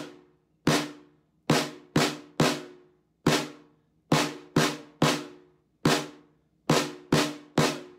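Snare drum with a wooden shell and wooden hoops, struck with wooden drumsticks: about thirteen separate strokes at an uneven rhythm, some single and some in quick pairs or threes. Each stroke rings briefly with the drum's tone and dies away before the next.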